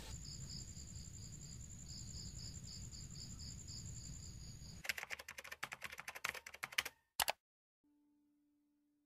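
Night insects chirping: a steady high trill with a pulsing chirp about four times a second, over a low hum. About five seconds in this gives way to two seconds of rapid clicking, then a single click and a soft, steady tone that fades.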